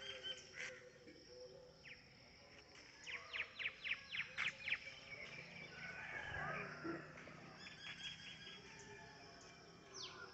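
Birds calling: a quick run of about eight sharp, high chirps a few seconds in, with short trilled phrases near the start and again later.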